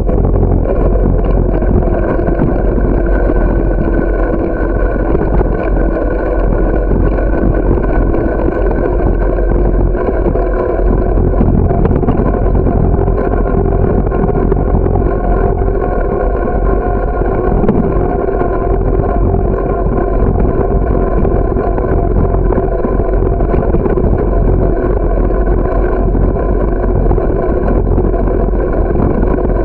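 Steady wind and road rumble from a camera riding on a moving bicycle on a paved path, with a constant whine running over it.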